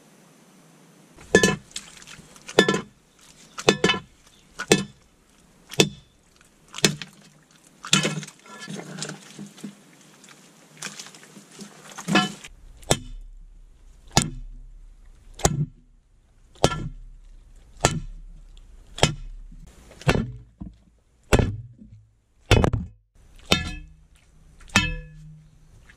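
Pickaxe blows into wet, rocky clay soil, striking and breaking stone, roughly one blow a second.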